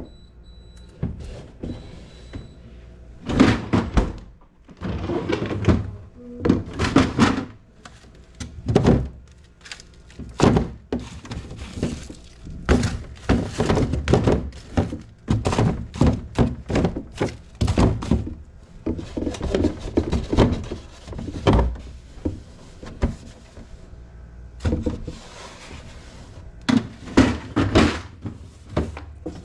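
Repeated knocks, thuds and clatter of containers and shelves being handled and set down, with sliding and shutting like drawers and doors, as a refrigerator is being cleaned out.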